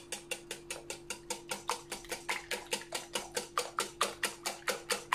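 Wire balloon whisk beating a thin mix of eggs and milk in a glass bowl, the wires clinking against the glass in a steady rhythm of about six strokes a second.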